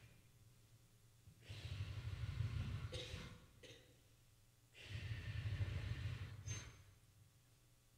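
Quiet passage of contemporary chamber-ensemble music: two soft swells of airy noise over a low rumble, each about two seconds long, with near silence between them.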